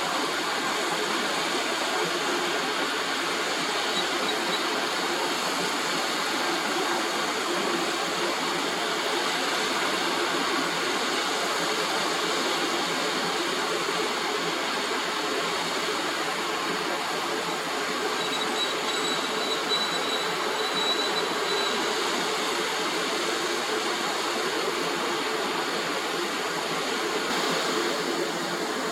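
Combine harvester running steadily while cutting rice, a constant mechanical noise with a faint high whine near the middle.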